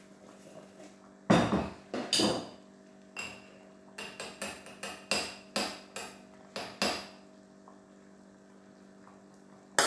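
Metal spoon knocking and clinking against a cooking pot as soup is stirred and seasoned: a few sharp knocks, then a quick run of clinks in the middle, and one more near the end.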